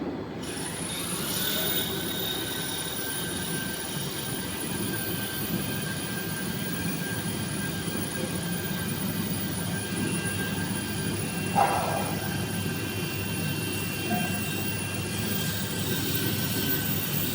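VMC1270 CNC vertical machining center running, a steady machine noise with a high whine that rises in pitch about a second in and then holds. A brief louder sound comes about twelve seconds in.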